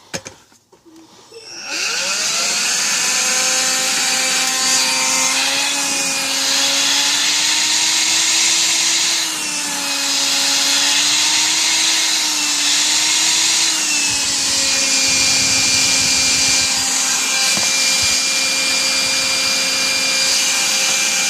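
Electrolux ZB3106AK cordless vacuum cleaner, running on its re-celled 14.4 V lithium battery pack, switched on with a click; its motor spins up with a rising whine about a second and a half in and runs steadily. The pitch wavers up and down for several seconds in the middle, then settles.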